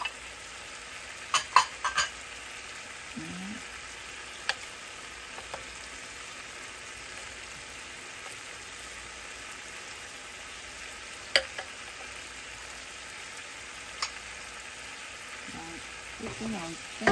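Tofu cubes sizzling in oil in a frying pan, a steady hiss, with a few sharp clicks of a utensil. The clicks come in a cluster about a second and a half in and singly about eleven seconds in.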